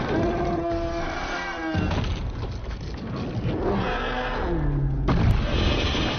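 Action-film soundtrack: an orchestral score with held tones, mixed with deep booms and crashes from a giant-monster fight. A low tone falls away near the end, and the mix breaks off abruptly about five seconds in.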